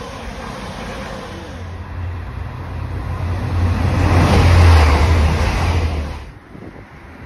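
A CrossCountry Voyager diesel train rumbles past. Then a TransPennine Express diesel multiple unit passes close by at speed: the engine drone and rushing wheel and air noise build to a loud peak about four to five seconds in and cut off suddenly just after six seconds.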